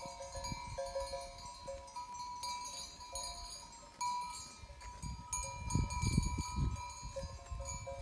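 Bells on a grazing flock of sheep ringing on and off, several tones overlapping. Gusts of wind rumble on the microphone, strongest from about five to seven seconds in.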